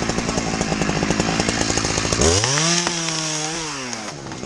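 Two-stroke chainsaw running hard with a rapid engine rattle. About two seconds in, its pitch rises sharply as it revs up and holds, then drops away near the end as the throttle is let off.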